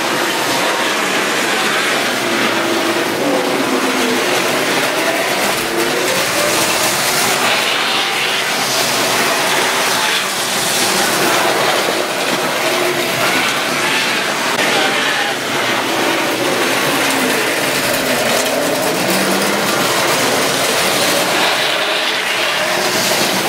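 Triang model trains running on steel track: a steady electric-motor whir with wheel rattle and clatter, the hum wavering in pitch as the trains change speed.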